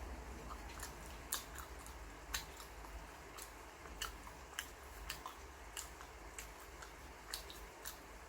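A person chewing and biting pizza close to the microphone: faint, irregular crisp clicks and crunches, a few every second.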